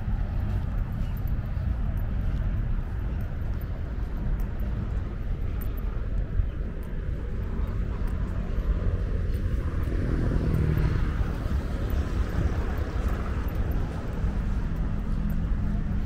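Outdoor ambience with a steady low rumble of road traffic, and a passing vehicle swelling up about ten seconds in and fading by thirteen seconds.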